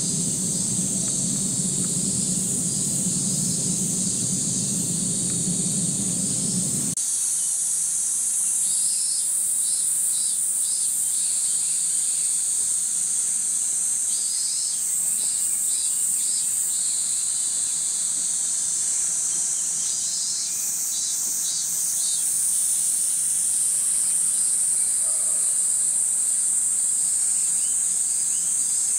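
A loud chorus of summer cicadas: a steady high buzzing, with rhythmic pulsing phrases from other cicadas rising and falling over it. A low rumble underneath stops suddenly about seven seconds in.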